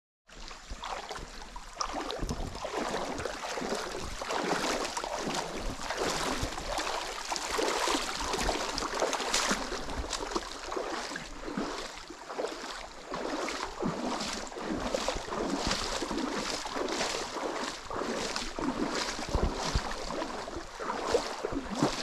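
Water splashing and sloshing in a steady rhythm, a little more than one splash a second, from someone wading along a shallow, muddy stream.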